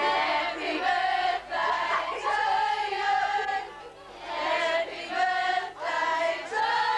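A group of high-school girls singing together, holding long sung notes phrase by phrase, with a short break about four seconds in.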